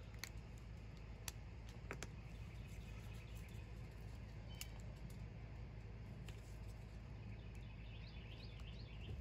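A few faint clicks from handling and uncapping a JB Weld tube, over a low steady hum. A bird chirps faintly near the end.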